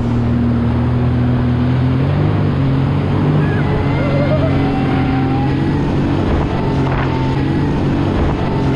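Jet ski engine running steadily under way, with a steady rush of water and wind noise. Its pitch steps up slightly about two seconds in.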